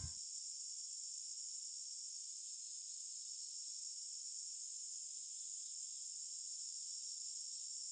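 Steady, high-pitched chorus of insects with no change in level, and nothing lower in pitch beneath it.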